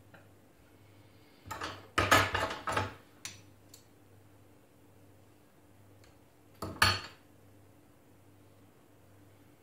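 Metal bonsai tools and wire clinking and clattering against the countertop as they are handled: a run of clatters from about one and a half to three seconds in, and a shorter one about seven seconds in.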